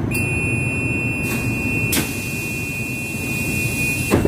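Light-rail car's door-warning buzzer: one steady high beep lasting about four seconds over the low rumble of the train, cut off by a loud thud as the sliding doors shut.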